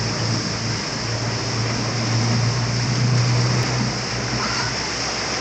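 Steady rushing noise of water with a low, even motorboat engine drone underneath, the drone easing about four seconds in.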